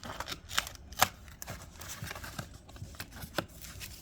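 Trading card packs and their box packaging being handled: a series of sharp clicks and taps, the loudest about a second in.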